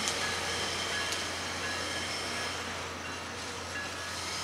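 Tri-Rail passenger train with BL36PH diesel locomotives rolling past, a steady rumble of wheels on rail with faint thin high tones over it.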